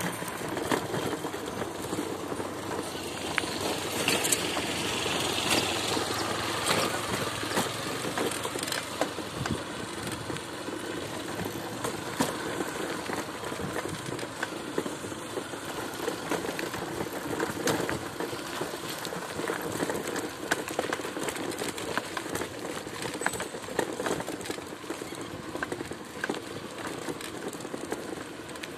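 Riding along a rough, potholed dirt road on a moving vehicle: steady tyre and wind noise with frequent rattles and knocks from the bumpy surface.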